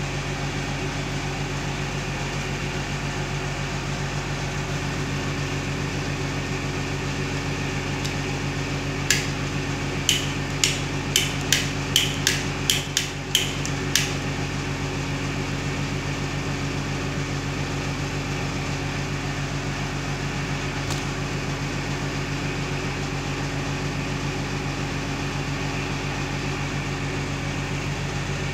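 Ambrich modular wall switch's rocker flicked on and off: about ten sharp clicks in quick succession over some five seconds, then one more click later. Under them runs a steady low hum.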